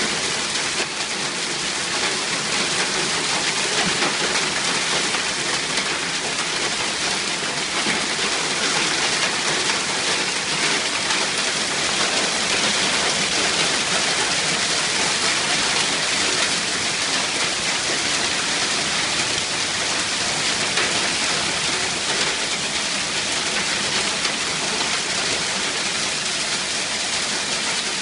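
Hailstorm: hail and rain pelting down steadily and densely, a continuous hiss thick with small clicking impacts.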